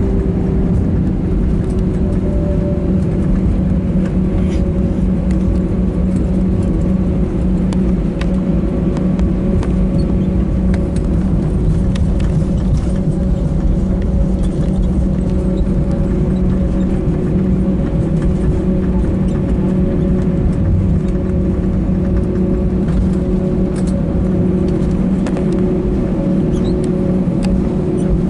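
Cabin noise inside an Airbus A320 taxiing after landing: the engines at taxi idle make a steady droning hum over a continuous low rumble.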